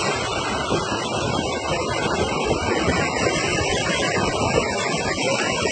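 Steady rushing noise of a vehicle driving along a flooded road in heavy rain: tyres running through standing water, along with rain and road noise.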